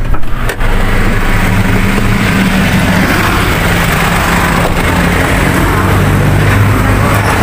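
Foton truck's engine idling steadily with an even low hum. A few short knocks sound in the first half second.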